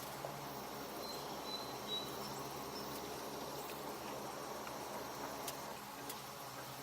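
Low, steady background hiss with a few faint clicks and some brief high-pitched chirps about a second in.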